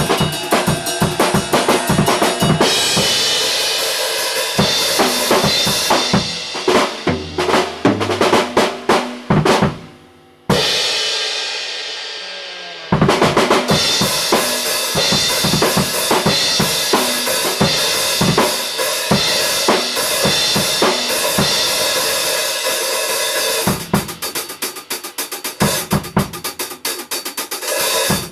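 Drum kit played solo: fast snare, bass-drum and tom hits under cymbals. About ten seconds in the playing stops for a moment, then a single cymbal crash rings out for about two seconds before the drumming picks back up.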